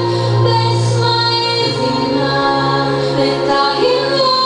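Recorded song played through speakers: a woman's voice holds long, slow notes over a sustained low bass note that changes pitch about one and a half seconds in.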